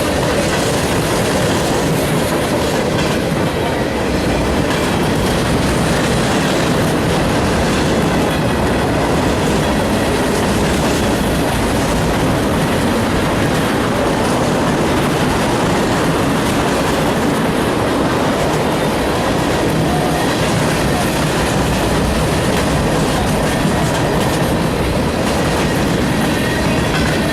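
Norfolk Southern freight train's cars rolling steadily past on the rails, the wheels clattering without a break and with no horn.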